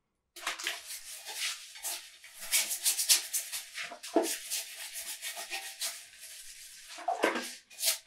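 Toilet brush scrubbing the inside of a toilet bowl: bristles rasping against the porcelain in quick, rapid back-and-forth strokes, starting a moment in and pausing briefly near the end.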